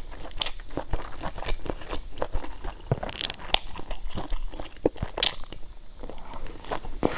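Close-miked chewing and mouth sounds of a person eating wide noodles in chili sauce: a run of short, irregular clicks.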